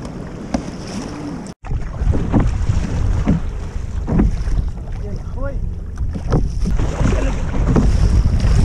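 Wind buffeting the microphone over choppy sea, with repeated water splashes from a kayak paddle dipping and pulling. The sound breaks off for an instant about a second and a half in.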